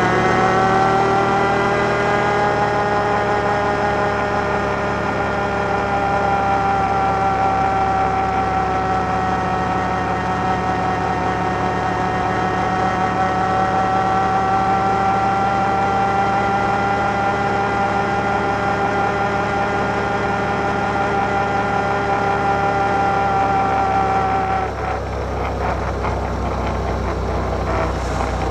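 Can-Am Outlander 1000 ATV's V-twin engine under way: it revs up over the first couple of seconds, then holds a steady cruising note for about twenty seconds. Near the end the throttle comes off, and the engine tone drops away under a rougher low rumble and scattered rattling clicks.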